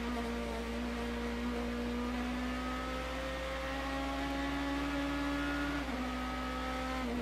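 Onboard sound of the BMW M3 GT race car's V8 engine under load, its pitch climbing slowly as the car accelerates. It dips briefly about six seconds in at a gear change, under steady wind and road rumble.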